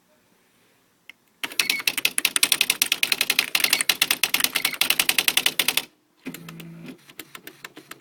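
Smith Corona SC 125 typewriter printing a fast, even run of strikes, about ten a second, for some four seconds. After it comes a short low motor hum with clicks, then a few more clicks.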